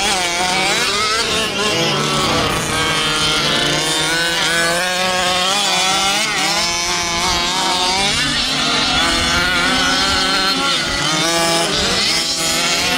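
Several fifth-scale gas RC buggies' small two-stroke engines buzzing and revving together. The pitch keeps rising and falling as the buggies accelerate and back off on the dirt track.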